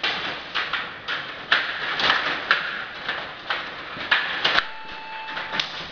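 Stiga Play Off rod table hockey game in play: rods slid and twisted, plastic players knocking the puck and rattling against the board, an irregular clatter of sharp clicks and knocks. A short steady tone sounds near the end.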